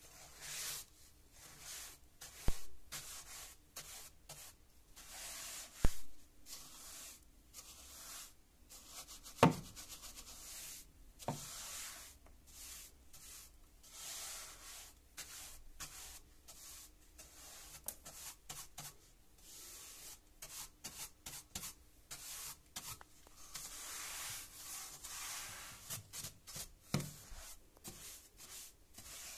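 Flat paint brush bristles sweeping dust and debris across a wooden stair tread in short, repeated hissing strokes. Several sharp knocks stand out among the strokes, the loudest sounds, most of them in the first half.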